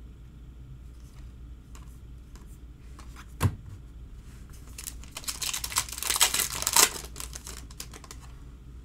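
Small clicks and light handling noise, one sharp tap about three and a half seconds in, then about two seconds of loud crinkling and tearing as a foil trading-card pack is ripped open.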